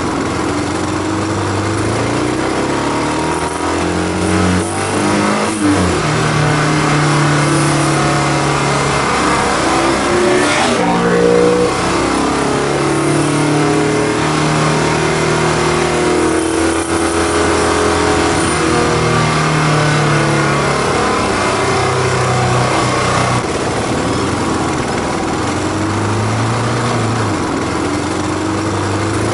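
Honda VFR750's V4 engine running and revving, its pitch holding and then stepping up and down repeatedly as the motorcycle rides.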